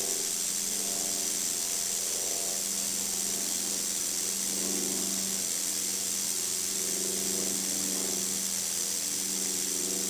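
Timber rattlesnake rattling its tail nonstop: a steady, even buzz that does not let up. It is the defensive warning rattle of a frightened snake.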